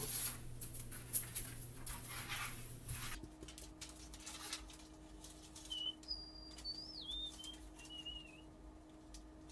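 Close rustling and shuffling as a paper airplane is picked up off the floor, then softer movement. Near the middle come a few faint, high, gliding chirps.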